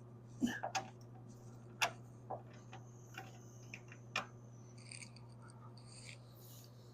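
Scattered sharp clicks and taps from hand tools and small metal parts being handled during work on the car's engine bay, about half a dozen at uneven intervals, over a steady low hum.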